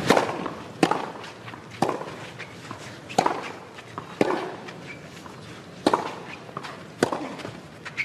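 Tennis ball struck by rackets in a clay-court rally, opening with a serve: sharp pops about once a second, around seven shots in all.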